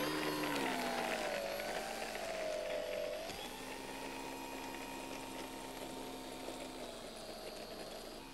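Electric motor and propeller of a Multiplex Mentor RC model plane taxiing. The whine rises and falls with the throttle, then steps up about three seconds in and holds steady before dropping slightly near the end, growing fainter as the plane moves away.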